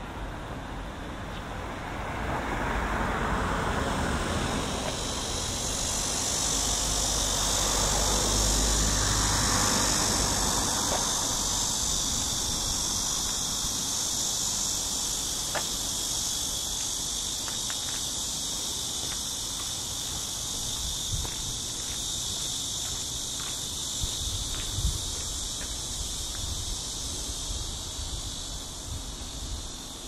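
Cicadas buzzing in a steady, dense, high drone that swells up over the first few seconds and then holds. A car passes by underneath it, rising to its loudest about eight seconds in and fading away by about eleven seconds.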